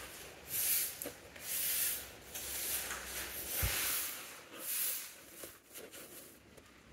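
Cloth rustling and rubbing in a series of short strokes as hands turn over and handle a fabric-wrapped kullah (turban cap), with one soft bump midway; the rustling dies away near the end.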